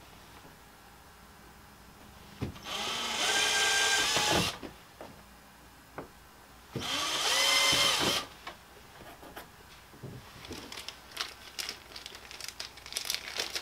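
Cordless drill boring holes through a kayak's plastic hull for pad-eye screws: two short runs of a steady whine, each spinning up and winding down. Light clicks and handling rustle follow near the end.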